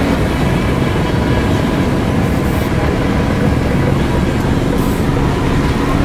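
Heavy diesel earthmoving machinery running steadily, a low engine rumble that holds an even pitch and level.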